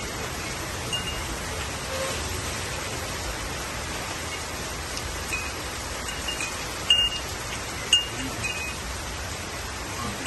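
Heavy rain falling steadily, with a scattering of short high ringing notes; the two loudest come about seven and eight seconds in.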